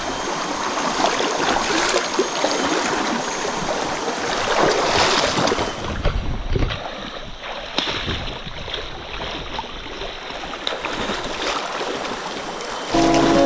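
Running water, a steady rushing wash with scattered knocks and splashes. Acoustic guitar music comes in near the end.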